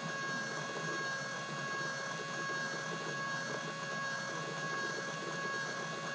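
Steady high whine of a small electric motor, with a hiss underneath.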